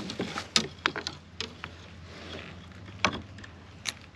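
Fishing tackle handled on a plastic kayak as a crab-baited line is cast: a few sharp clicks and knocks at irregular intervals.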